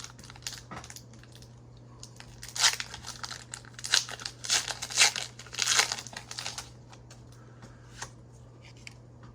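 Foil Pokémon TCG booster pack wrapper being torn open and crinkled, with a dense run of crackling rips through the middle few seconds. A low steady hum lies under it.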